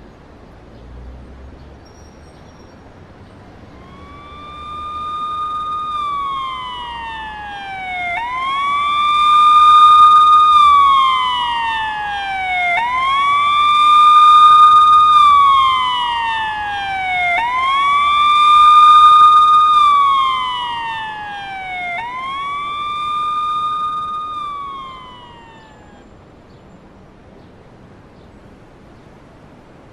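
Police siren wailing: each cycle rises quickly to a high pitch, holds, then slides slowly down, about every four and a half seconds, five times in all. It grows louder and then fades away.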